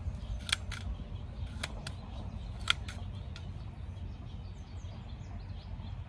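Several small, sharp plastic clicks in the first three seconds as toy missiles are fitted onto a Lionel missile-firing flatcar. Faint bird chirps follow near the end, over a steady low rumble.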